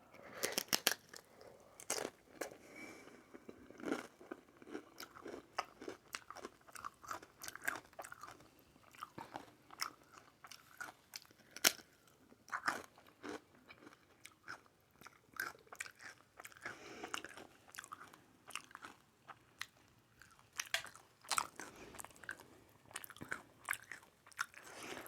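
Close-miked eating of aguachile verde, a dish of shrimp with raw cucumber and onion in lime juice: irregular crunchy bites and chewing.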